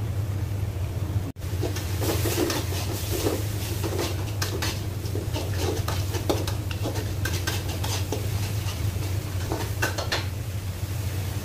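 Metal spatula scraping and clinking against a wok, stirring and pushing chili sambal paste around, in many quick irregular strokes over a steady low hum. The sound cuts out for an instant about a second in, and the scraping thins out near the end.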